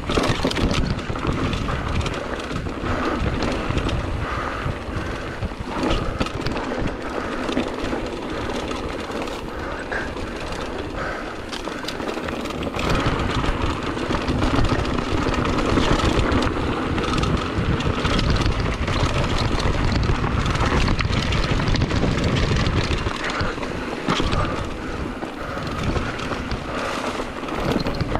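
Mountain bike riding fast downhill on a rocky dirt trail: tyres crunching over gravel and stones, the chain and frame rattling over the bumps, and wind rushing on the mounted camera's microphone. It gets louder about halfway through.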